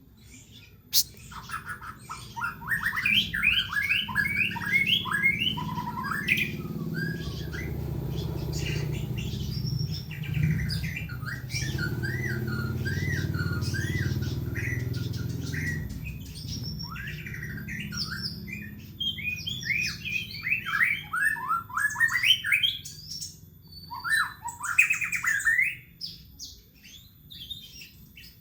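White-rumped shama (murai batu) in full song: a long, varied run of quick whistled phrases, sweeps and trills with short pauses between them. A steady low rumble sits beneath the song for the first two-thirds.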